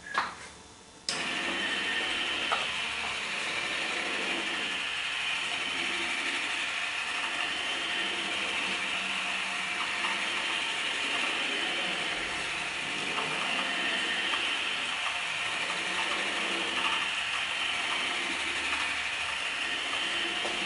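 Gear-driven drawing machine with planetary gears starting up after a few clicks about a second in, then running steadily as its rotating discs drive the pen arm.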